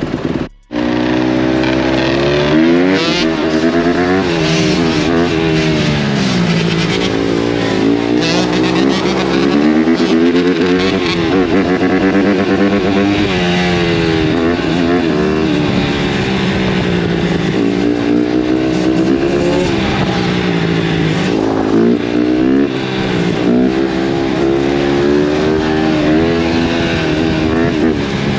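Dirt bike engine revving, its pitch climbing and dropping again and again as it accelerates and changes gear. The sound cuts out briefly just under a second in.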